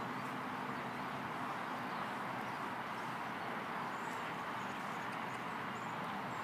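Steady outdoor background hiss, with faint high chirps here and there.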